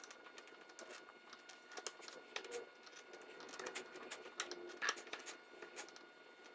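Light, irregular taps, clicks and scrapes of a narrow hand chisel working at the wooden dovetail sockets, with a couple of sharper ticks a little past the middle.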